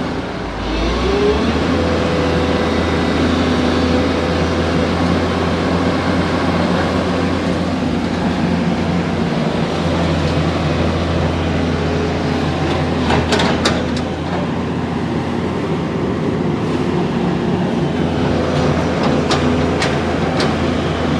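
JCB excavator's diesel engine running steadily as the machine travels, its pitch rising briefly about a second in. A few sharp clanks come in the middle and near the end.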